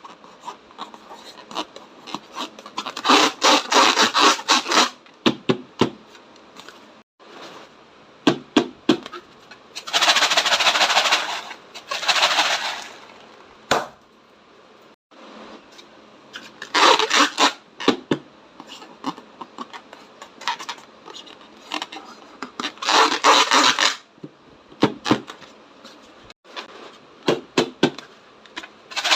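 Slime being squished and kneaded by hand, crackling and popping in several bursts of dense clicks, with a longer hissing squelch partway through.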